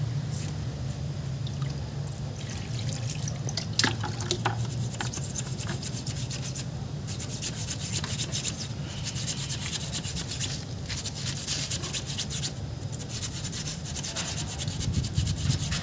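A thin metal rod scraping and clicking as it is jabbed up and down inside a radiator core's tubes, rodding out clogged tubes. The first half has scattered strokes; about halfway through they turn into a fast, dense run of scraping clicks.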